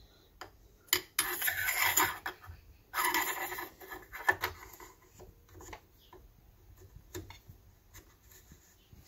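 Scraping and rubbing of hard parts as a greased trolley-handle rod and its plunger are worked by hand into the frame of a Kingsong S18 electric unicycle. Two longer scrapes come in the first few seconds, then light clicks and rustles.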